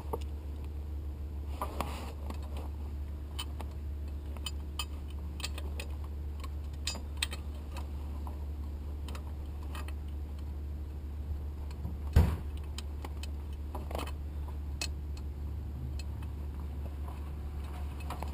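Scattered small metallic clicks and clinks of hand tools and parts being handled, over a steady low hum, with one louder knock about twelve seconds in.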